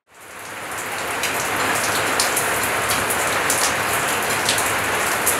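Steady rain falling, with sharp ticks of single drops scattered through it. It fades in over the first second.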